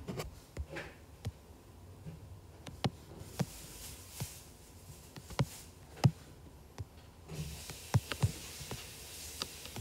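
Light, irregularly spaced taps on a tablet's touchscreen, about a dozen, over a faint hiss that grows a little brighter about seven seconds in.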